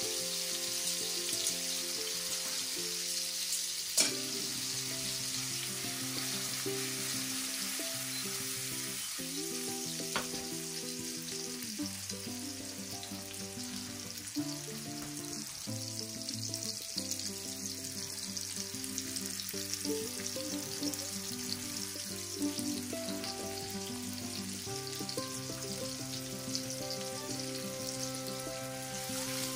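Salmon pieces sizzling steadily as they fry in hot oil in a frying pan. Soft background music with sustained notes plays under it, and there is a sharp click about four seconds in.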